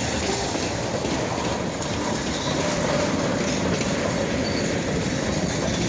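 Freight cars (covered hoppers and tank cars) rolling past close by: steel wheels rumbling steadily over the rails, with a faint thin squeal from the wheels.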